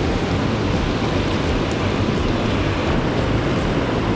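Steady rush of water pouring through a dam spillway's open gates and churning below it.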